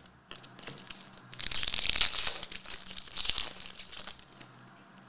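Trading-card pack wrapper being torn open and crinkled by hand: a dense crinkling that starts about one and a half seconds in and lasts a couple of seconds.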